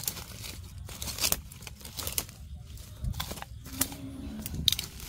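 Hands pulling apart and rummaging through dry plant debris and soil, an uneven run of crackles, rustles and tearing.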